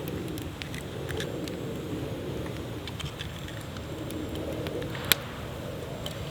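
Large wood bonfire burning: a steady low rush of flame with scattered crackles and snaps, one sharp pop about five seconds in.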